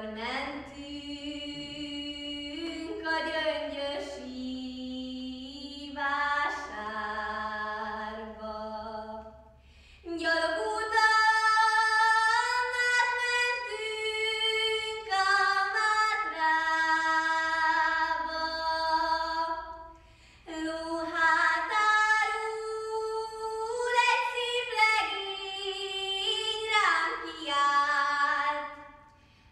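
A girl singing a Hungarian folk ballad solo and unaccompanied, in long held phrases with short breaks for breath. The first phrase is lower and softer; the later ones are louder and higher.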